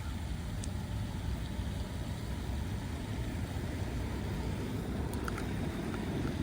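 Steady low rumble with a few faint clicks near the end.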